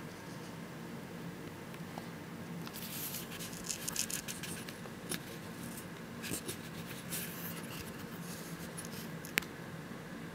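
Quiet room tone with a steady low hum, broken by scratchy rustling a few seconds in and again past the middle, and two sharp clicks, about five and nine seconds in.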